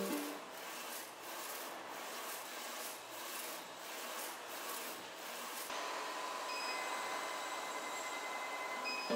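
Flatbed UV LED printer at work: the print-head carriage sweeps back and forth with a rhythmic swishing rub. About six seconds in this gives way to a steadier machine hiss with faint high whining tones.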